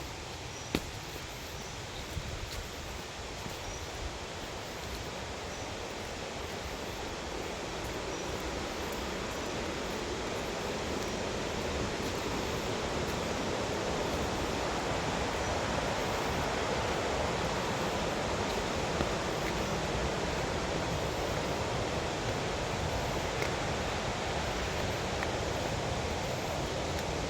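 Waterfall rushing as a steady wash of water noise, growing louder over the first half and then holding level.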